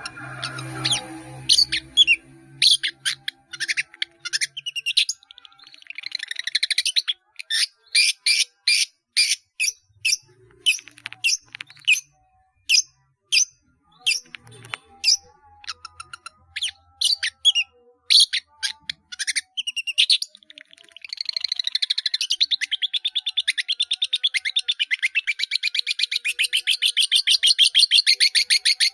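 Long-tailed shrike singing loudly, a quick string of sharp, high chirps and whistles packed with mimicked calls of other birds. About two-thirds of the way through it breaks into a long, fast, rattling trill.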